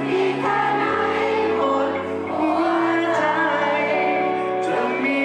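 Live pop ballad over the concert PA: a male singer with his band, sustained keyboard-like chords under the vocal line, and the audience singing along.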